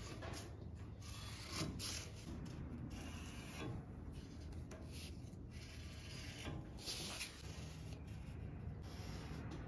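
Permanent marker tracing around a cardboard template on metal plate: faint, irregular rubbing and scratching strokes as the pen runs along the edge and the cardboard shifts under the hand.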